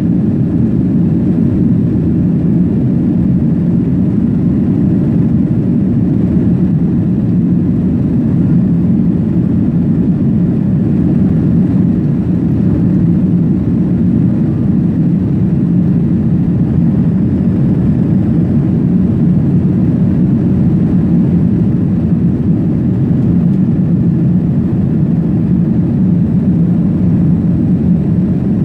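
Steady low rumble of a vehicle in motion, holding the same level throughout with no change in pitch.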